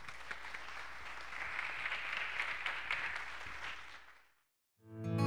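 Audience applauding, swelling about a second in and fading out around four seconds in. Acoustic guitar music starts right at the end.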